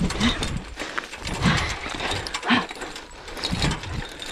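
A sled dog barking four times, about once a second, over a steady rattle.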